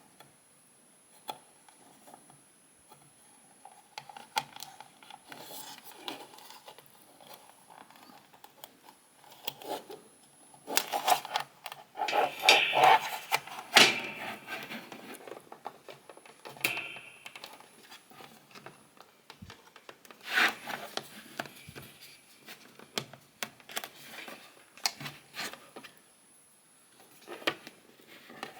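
Plastic figure parts rubbing, scraping and clicking against the display base as the figure's leg holes are worked onto the base's pins. The scraping comes in uneven bursts, busiest around the middle.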